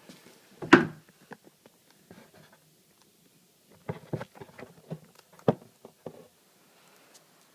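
Handling noise: scattered thumps and knocks of objects being picked up and set down. There is a loud thump about a second in, a cluster of knocks around four seconds, and another sharp knock a little later.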